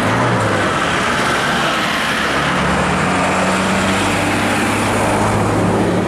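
Isuzu midibus engine idling with a steady low hum that strengthens about two and a half seconds in, over road traffic.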